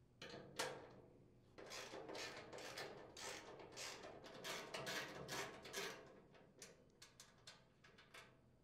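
Faint ratchet clicking in short runs as a half-inch socket unthreads the hopper mounting nuts from the steel housing, followed by a few light, scattered metal clicks as the loosened nuts are handled.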